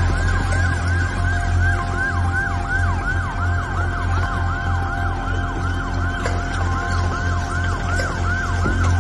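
Emergency vehicle sirens sounding: a fast, repeating siren whose notes each drop in pitch, about three a second, with a steadier held siren tone in places, over a low hum.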